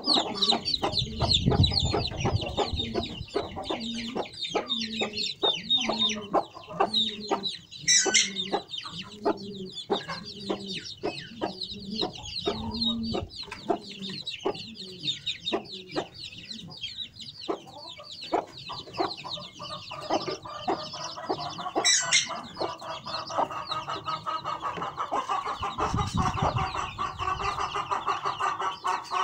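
Aseel hen clucking in a steady series of low clucks through the first half, while her young chicks peep almost without pause. In the last third a steadier, drawn-out sound takes over beneath the chicks' peeping.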